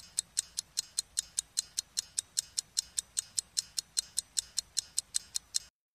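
Clock-ticking sound effect: fast, even, sharp ticks, about five a second, that stop shortly before the end.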